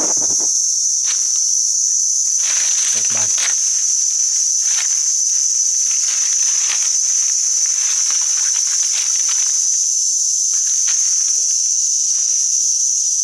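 Steady, loud, shrill chorus of insects holding one high pitch throughout, with scattered short rustles and crackles and a brief voice sound about three seconds in.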